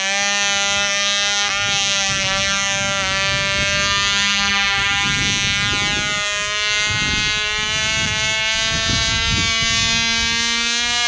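Cox .049 glow engine on a tiny model biplane running at a steady high speed: a high-pitched, nasal buzz with little change in pitch. Wind gusts rumble on the microphone under it.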